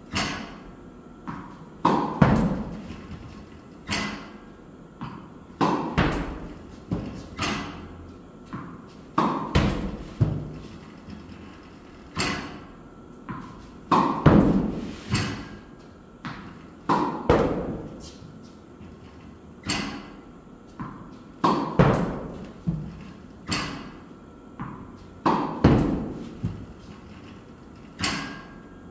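Tennis balls struck with a racket on repeated backhands, a sharp hit about every one to two seconds, each echoing briefly in the hall. Some hits come in quick pairs with a second thud.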